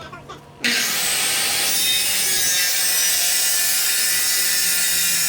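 Power saw cutting through a wooden board, a steady rasping cut that starts suddenly about half a second in and keeps going without a break.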